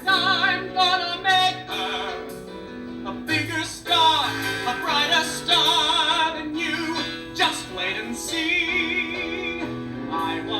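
A show tune from a stage musical, sung with heavy vibrato and held notes over instrumental accompaniment.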